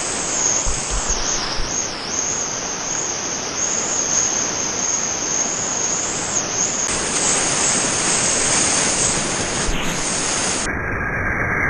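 Loud, steady rush of whitewater rapids churning around a stand-up paddleboard, close to the microphone. Near the end the sound turns suddenly duller and muffled.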